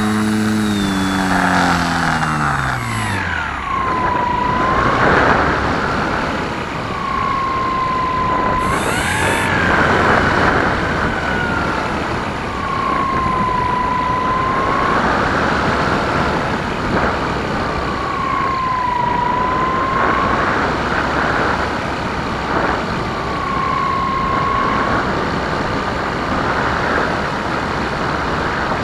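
Onboard audio of the Dancing Wings FPV Spanner RC plane in flight: the electric motor and propeller hum drops steeply in pitch in the first few seconds as the throttle comes down. After that, wind rushes over the camera, with a thin whine that dips and rises in pitch about every five seconds.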